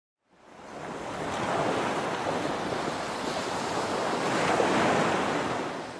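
Ocean surf and wind: a steady wash of waves that fades in over the first second and fades out near the end.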